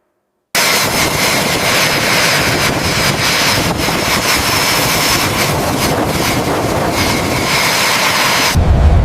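Jet engine running: a loud steady rush of noise with a high whine, starting suddenly about half a second in and cutting off abruptly near the end, where a deeper low rumble takes over.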